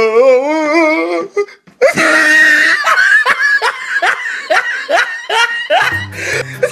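A person laughing hard in quick, evenly repeated bursts, after a long wavering drawn-out cry at the start. Music with a bass line comes in near the end.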